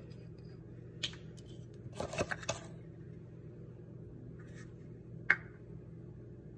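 Small handling noises from a hot sauce bottle and a plastic measuring cup: a single click, a brief cluster of scratchy clicks and scrapes, then one sharp click just after five seconds, over a low steady hum.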